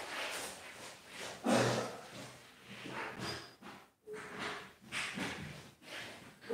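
Muffled household knocks and rustling from an unseen room, in several separate bursts, the loudest about a second and a half in.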